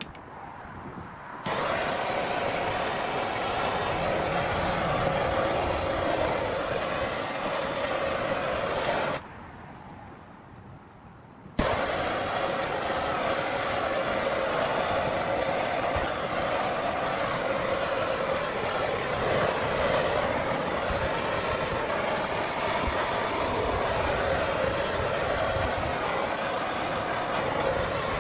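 A powered abrasive wheel grinding the steel blade of an antique draw knife, a steady rasping hiss. It runs in two long passes, broken by a quieter pause of a couple of seconds around a third of the way in.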